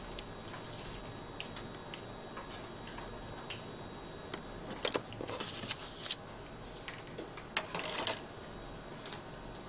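Light clicks and scratches of a pen on paper, then the sheet of paper sliding and rustling as it is moved and turned, in two short bursts, one around the middle and another a couple of seconds later.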